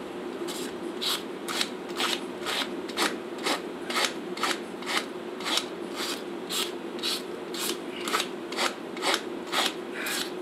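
Farrier's hoof rasp drawn across a draft horse's hoof in steady, even strokes, about two a second, levelling the foot after trimming.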